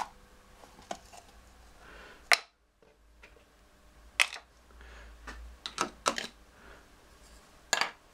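Scattered sharp clicks and metallic taps of small metal parts and hand tools being picked up and set down on a workbench while an ignition trigger housing is dismantled; the loudest knock comes about two seconds in, and a quick cluster of clicks follows later.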